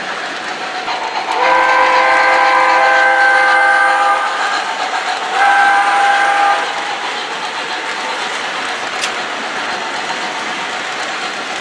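Steam whistle from the sound system of an MTH Premier O scale PRR G-5s model locomotive, played through its speaker as a chord of several tones. It gives one long blast of about three seconds, then a shorter one, over the steady rolling noise of the running train.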